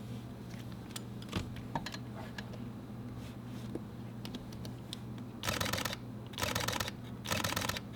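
Fujifilm mirrorless camera mechanical shutters firing in continuous bursts: three quick bursts of rapid shutter clicks, each about half a second long, beginning about five and a half seconds in. Before them come only a few faint, scattered clicks over a low steady hum.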